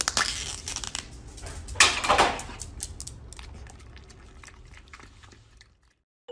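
Foil lid being peeled off a small plastic snack cup, with two loud crinkling, tearing rustles about two seconds apart. Fainter scattered clicks follow and die away.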